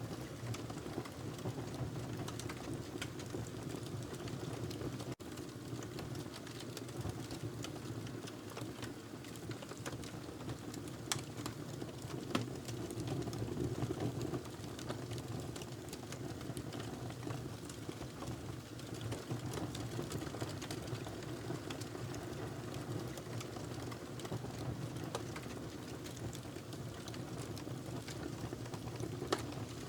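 Wood fire burning in a fireplace: a steady low rush of flames with many small scattered crackles and pops.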